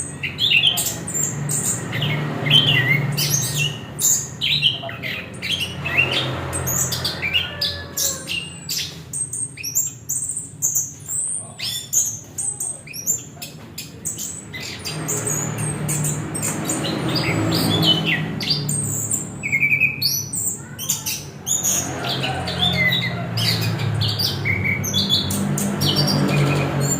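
Chestnut-capped thrush (anis kembang) singing a long, rapid run of varied notes, chirps and squawky phrases without a break. A low hum rises and fades beneath it at times.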